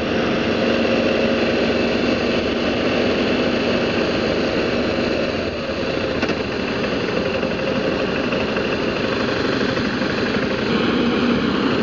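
BMW G650GS single-cylinder motorcycle engine running steadily while riding in city traffic, with wind and road noise on the bike-mounted camera's microphone.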